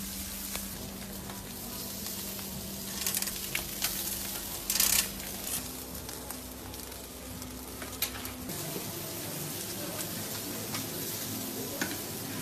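Whole fish sizzling on a charcoal grill, a steady hiss with scattered sharp pops and a louder burst of sizzling about five seconds in.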